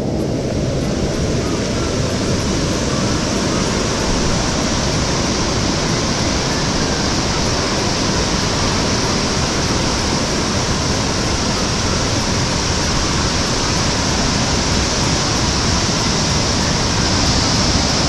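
Steady rush of water from a rocky stream's cascades and waterfall, an even unbroken sound that grows slightly louder near the end.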